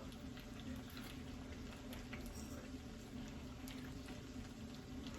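Faint, scattered clicks of a fork against a plate as someone takes bites of pasta, over a steady low hum.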